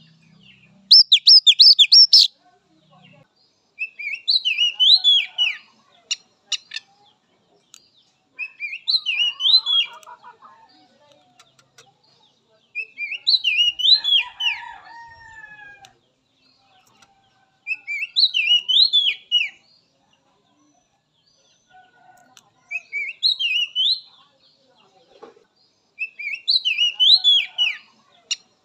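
Oriental magpie-robin (kacer) singing: short phrases of quick whistled notes that rise and fall, repeated about every four to five seconds, after a louder rapid burst of notes about a second in.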